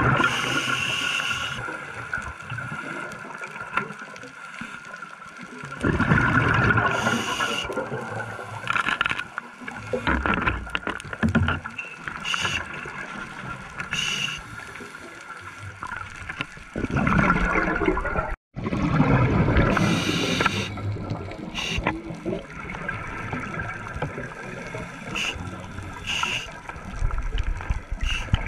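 Scuba regulator breathing heard underwater: exhaled bubbles gurgle and rumble in long bursts every several seconds, with short hisses of inhalation between them.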